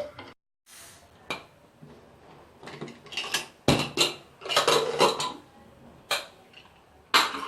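Metal spoon clinking and scraping against a steel cooking pot in a series of uneven clatters.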